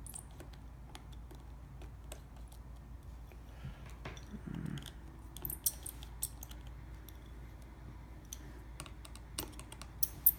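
Small repair tools clicking and tapping on an iPhone 6's tiny internal screws and metal shield plate as the shield screws are taken out. Irregular light clicks, bunched a little after the middle and again near the end.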